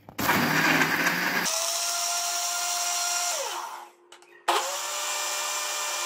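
Electric blender (National juicer-blender) pureeing whole strawberries with sugar and salt. The motor starts with a rough chopping sound, then settles into a steady whir after about a second and a half as the fruit turns to pulp. It winds down a little past halfway when switched off, and is switched back on about half a second later, running steadily again.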